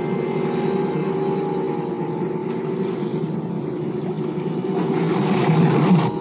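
Boat engine running with a steady drone, and a rush of water noise swelling about five seconds in.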